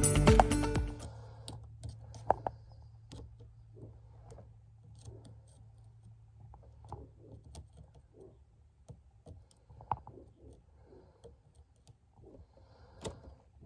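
Background music fading out in the first second. Then faint, scattered clicks and taps from an automotive test light's probe tip and hands working against the plastic blade fuses in a fuse panel, over a low steady hum.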